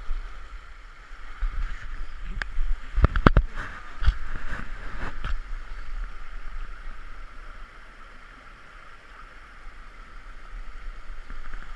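Shallow stream running over stones, a steady babbling, with a few sharp knocks and splashes close to the microphone about three to five seconds in.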